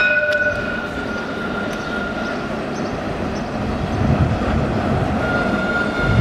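Alstom Citadis tram running along street track toward the listener and drawing level, its low rumble growing louder from about four seconds in. A steady high-pitched whine sounds at the start, fades, and comes back near the end.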